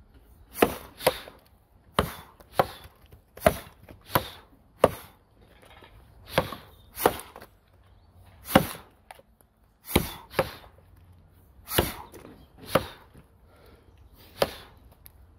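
Axe blows biting into a log in a standing underhand chop: sharp, woody thwacks about one a second, some coming in quick pairs.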